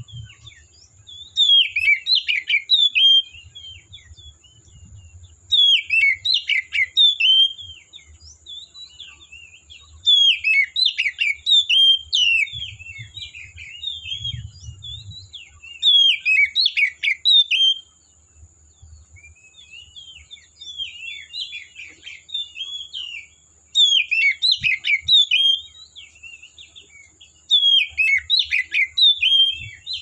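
Oriental magpie-robin (kacer) singing: loud bursts of rapid, varied whistled and chattering phrases every few seconds, with softer scattered notes in between.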